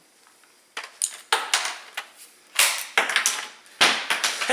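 Plastic and metal parts of a disassembled cordless chainsaw being handled, knocking and scraping against each other and the bench in a quick, uneven series of clatters starting about a second in.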